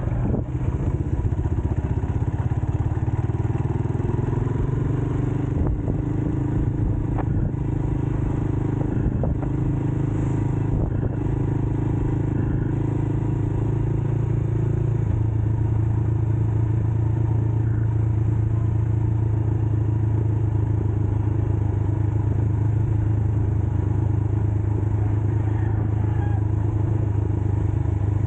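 Rusi KRY 200cc dirt bike's single-cylinder engine running under way. Its note rises over a few seconds early on and shifts about halfway through, with a few light knocks and clatter from the bike over the rough dirt road.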